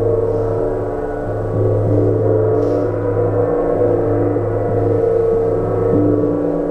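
Large hand-held gong ringing on after being struck: a sustained shimmer of many overlapping tones, its low hum pulsing in and out about once a second as it is carried close to the listeners.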